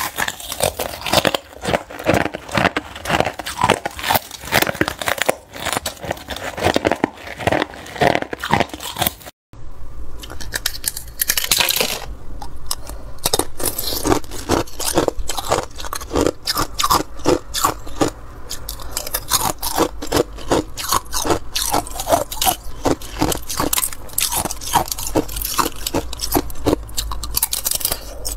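Thin ice being bitten and chewed: rapid crisp cracks and crunches, with a brief moment of silence about nine seconds in.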